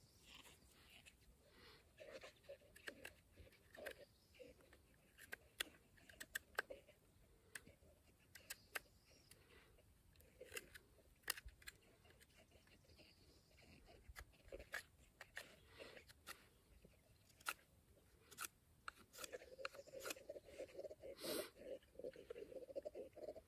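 Knife blade shaving and scraping a forked wooden stick: faint, irregular short scrapes and clicks as the wood is whittled, turning into a rougher, steadier stretch of scraping near the end.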